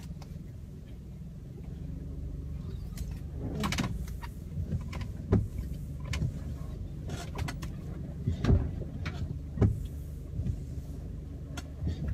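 Steady low rumble of a car's engine and tyres heard from inside the cabin as it drives, with several short, sharp knocks scattered through it.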